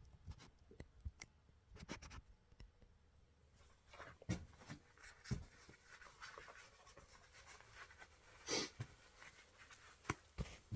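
Faint, scattered clicks and knocks of objects being handled, with one short louder scrape or rustle about eight and a half seconds in.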